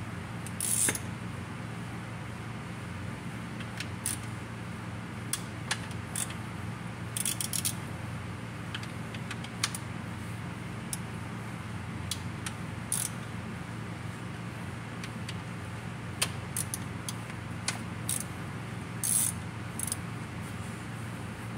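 Scattered light metal clinks and a few brief rattles of hand tools and bolts, over a steady low hum.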